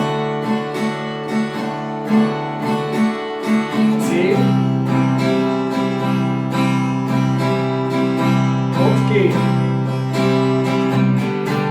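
Acoustic guitar played with a picking-and-strumming pattern through open major chords: repeated single plucked notes, then a chord change about four seconds in to fuller ringing chords, with brief finger-slide squeaks on the strings at the chord changes.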